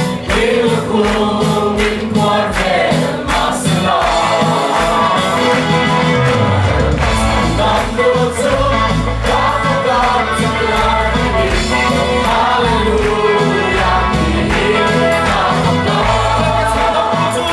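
Gospel singing by a group of voices with band accompaniment and a steady beat; a deep bass line comes in about six and a half seconds in.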